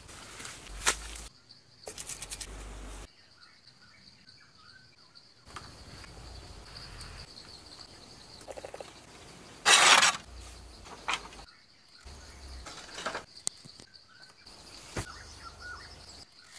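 Forest ambience with a steady high-pitched tone running through most of it, broken by abrupt cuts, a few short knocks from hand work on wooden poles, and one loud, brief noisy burst about ten seconds in.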